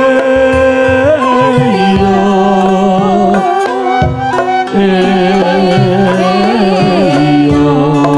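Traditional Sundanese ceremonial music playing loudly: a wavering melody of held, sliding notes over sustained low notes, with drum strokes.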